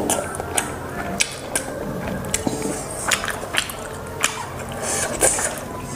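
Close-miked eating of Maggi instant noodles by hand: slurping and chewing, with a string of sharp clicks and light taps as fingers scrape the steel bowl.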